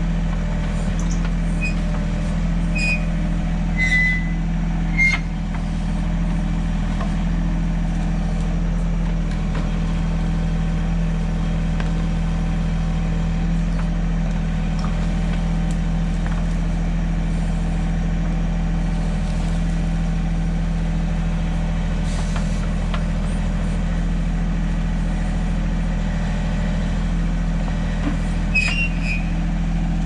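Mahindra 1626 compact tractor's three-cylinder diesel engine running at a steady speed, with a few short high-pitched chirps about two to five seconds in and again near the end.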